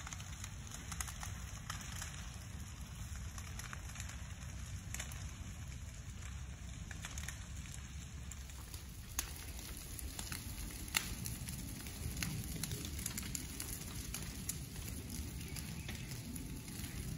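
A ground fire burning through pine-forest leaf litter and brush, crackling with scattered sharp pops over a steady low rumble. Two of the pops, about 9 and 11 seconds in, stand out.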